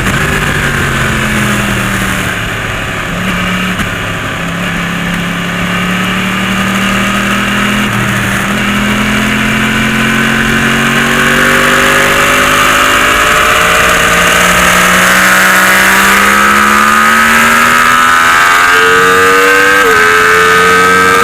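Yamaha YZF-R1 inline-four engine running hard on track, its pitch climbing slowly and dropping abruptly at gear changes a few times, with a growing rush of noise in the second half.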